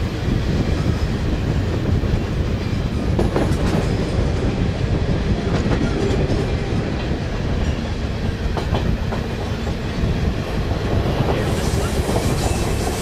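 Steady rumble and clatter of rail wheels, heard from aboard a moving train passing a long potash train of covered hopper cars, with scattered clicks over the rail joints. A brighter hiss comes in near the end.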